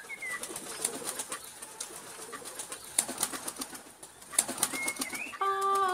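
Birds calling: scattered short chirps and clicks, with a curved whistled call at the start and again near the end. Sustained music chords come in just before the end.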